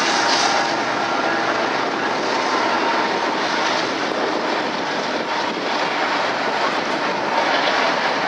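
Union Pacific freight train of autorack cars rolling past, a loud, steady noise of steel wheels on the rails.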